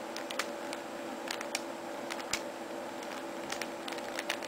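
Plastic Square-1 puzzle being turned by hand: irregular light clicks and clacks as its layers rotate and its right half is flipped, over a faint steady hum.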